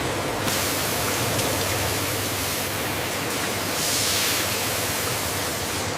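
Steady rushing hiss of egg-processing plant machinery with a low hum beneath it, growing brighter for a moment about four seconds in.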